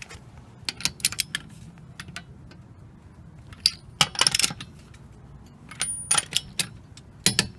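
Click-type torque wrench and socket on the wheel lug nuts: groups of sharp metallic ratchet clicks and clinks as each nut is tightened to 80 ft-lb, the loudest clusters about four and seven seconds in.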